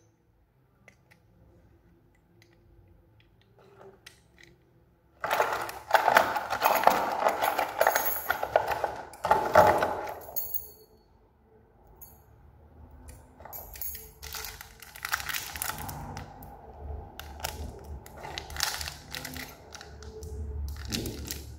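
Rustling and crinkling with sharp metallic clicks and clinks as a door lock set's parts are handled, densest for about five seconds a third of the way in, then sparser.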